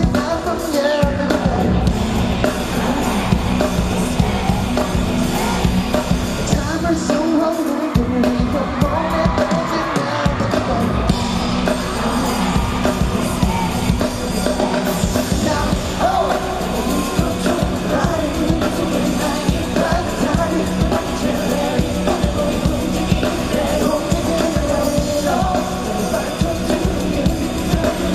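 Live pop music at a concert: a steady dance beat with a male voice singing, and the crowd yelling.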